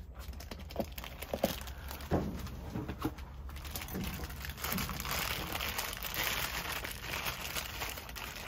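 A cardboard parts box being opened and handled, giving a few light knocks and scrapes, then a clear plastic bag crinkling steadily from about four seconds in as a piston is unwrapped from it.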